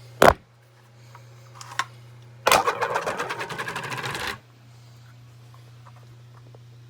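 Smoke detector being handled: a sharp plastic click, then a rapid clatter of about ten clicks a second for about two seconds that stops abruptly, over a steady low hum.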